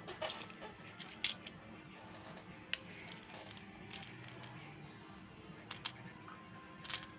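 A few short, sharp clicks and taps, scattered over several seconds, against a steady background din with faint music.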